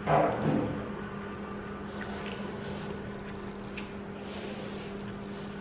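Someone eating instant noodles with a fork: a short loud mouth sound as a bite is taken, then soft chewing and a few light clicks of the fork against the bowl. A steady low hum runs underneath.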